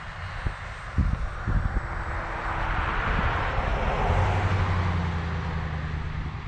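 Mini Skyhunter R/C airplane's electric motor and propeller running in flight, growing louder over a couple of seconds and then easing off. Low wind thumps on the microphone about a second in.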